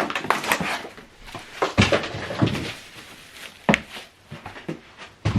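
Boxed packaging being handled while unpacking a soundbar and subwoofer: irregular rustles, scrapes and sharp knocks, the loudest a few clicks about two, three and a half and five seconds in.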